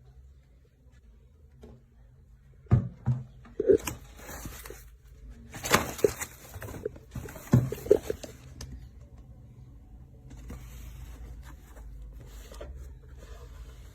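A run of knocks, clatters and scrapes from hard objects being handled and set down, loudest in the middle, then a steady low hum for the last few seconds.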